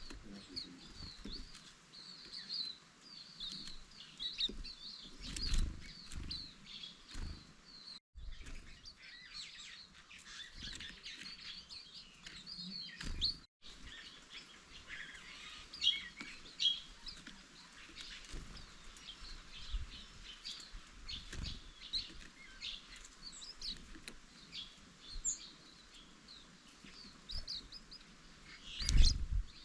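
Green-backed white-eyes chirping with many quick, high twittering notes. A few low thumps break in, the loudest near the end.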